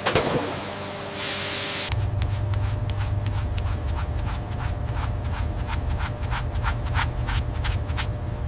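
Machine noise: a knock and a hiss, then, after an abrupt change about two seconds in, a steady low hum with rapid ticking, about three to four ticks a second.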